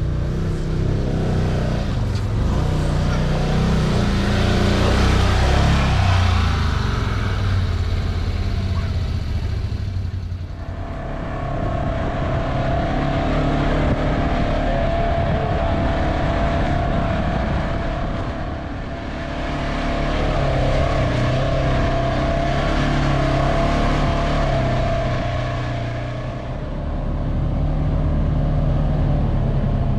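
Side-by-side buggy engine running as it is driven, its note rising and falling with the throttle. It eases off briefly about ten seconds in, again near the twenty-second mark and once more near the end, with a steady whine under the engine through the middle stretch.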